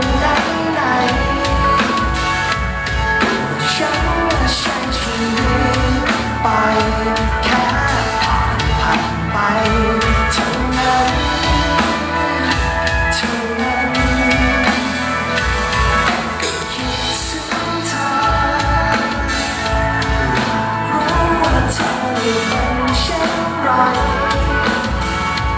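Live band music: a male lead vocalist singing into a microphone over electric bass, drums and keyboard.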